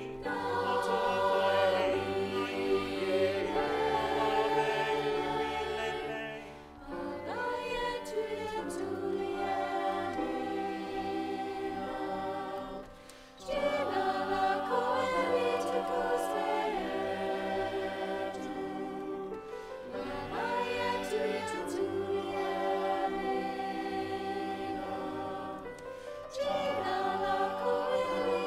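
Mixed choir singing slow, sustained chords in long phrases, with short breaks between phrases.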